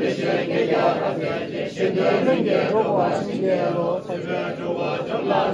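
A crowd of Tibetan monks and laypeople chanting a prayer together in unison, many voices overlapping.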